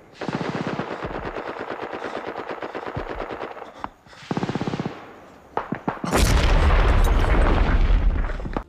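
Machine-gun fire: a long rapid burst of about three and a half seconds, then a short burst and a few single shots. In the last two and a half seconds comes a louder, denser barrage of gunfire over a deep rumble, which cuts off suddenly.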